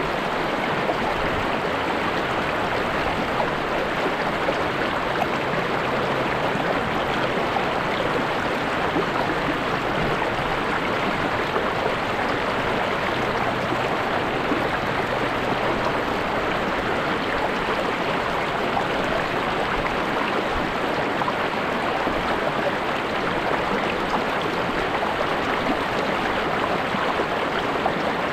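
Steady rushing of a river or stream flowing over rocks, an even, unbroken sound of running water.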